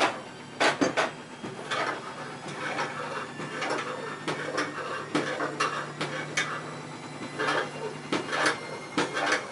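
Metal tools and parts of a hand-operated knife-sharpening jig being worked and handled: irregular short scrapes and clinks, with a few sharper knocks in the first second.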